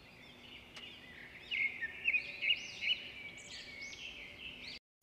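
Many birds chirping together, fading in and growing louder, over a faint steady hum; the sound cuts off abruptly near the end.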